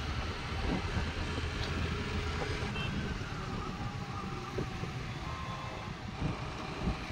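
Steady wind noise on the microphone over a scooter's engine and tyres running at road speed.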